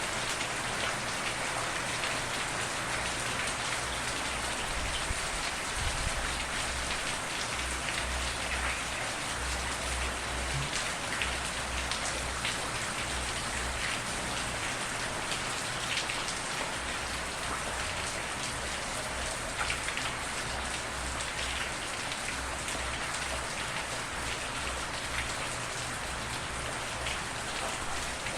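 Steady rain falling, with drops pattering on a surface and a faint low rumble coming and going underneath.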